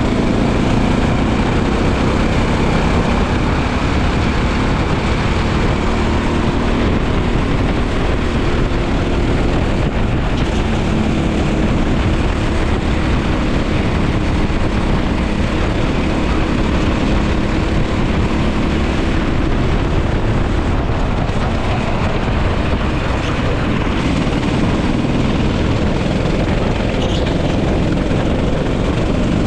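Racing go-kart engine running at speed through a lap, its pitch rising and falling faintly under a steady rush of wind and rumble.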